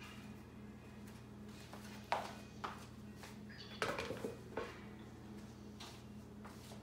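A few sharp knocks and clicks, with a small cluster of them about two thirds of the way through, over a steady low hum.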